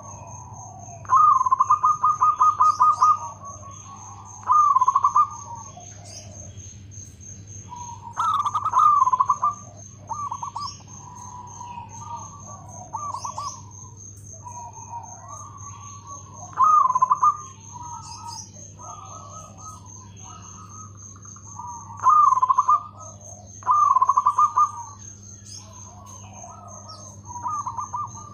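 Zebra dove (perkutut) cooing: short phrases of quick, staccato coo notes, repeated every few seconds, with softer notes in between. A steady, fast-pulsing high-pitched buzz runs underneath.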